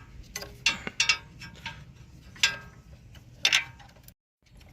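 Metal hand tools clinking on steel suspension and hub parts: a handful of irregular, sharp metallic clicks, each with a brief ring.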